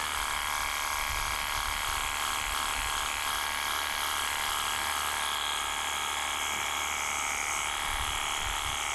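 Ingco 20V cordless pressure washer running steadily, its electric motor and pump giving a steady whine of several tones over the hiss of soapy water spraying from the soap bottle attachment.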